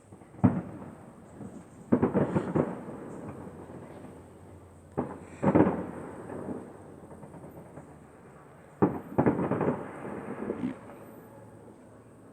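Fireworks bursting: a sharp bang about half a second in, a rattle of quick crackles around two seconds, two more bangs around five seconds, then another bang near nine seconds followed by a second and a half of crackling.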